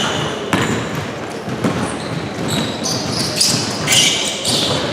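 Basketball bouncing on the court during play, heard as a scatter of sharp thuds. Players' sneakers squeak in high, short streaks, most of them in the latter half.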